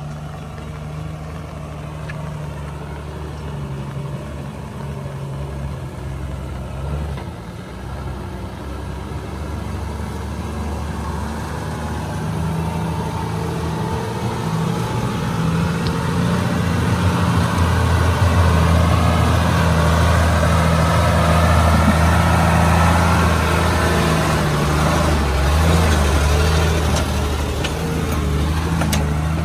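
Tata 1612 4x4 truck's diesel engine running as it wades through a flooded river, with water surging around it; the sound grows louder from about halfway through as the truck comes close.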